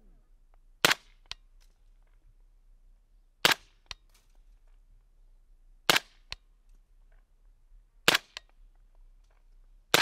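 Five shots from a rifle firing subsonic .300 Blackout rounds, spaced about two and a half seconds apart. Each shot is followed a fraction of a second later by a fainter sharp crack.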